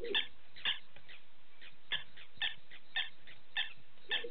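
Night-time animal calls: short high chirps repeated about twice a second. A lower call comes at the start and again near the end.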